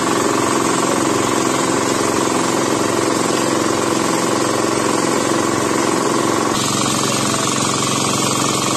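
An engine running steadily at constant speed, with a slight change in tone about two-thirds of the way through.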